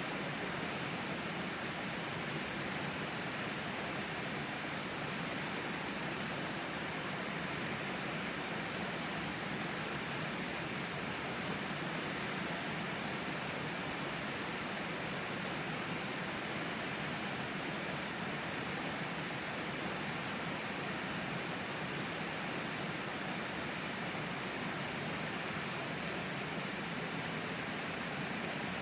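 Steady rushing of a river's flowing water, the Tama River, an even wash of noise with a steady high-pitched whine running through it.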